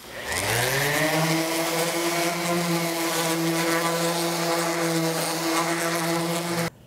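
Electric random orbit sander starting up, its pitch rising over the first second, then running steadily as it sands wooden boards. The sound cuts off suddenly near the end.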